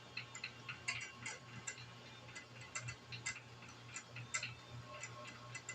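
Metal lathe running with its spindle turning: a steady low hum with quick, irregular light ticking over it.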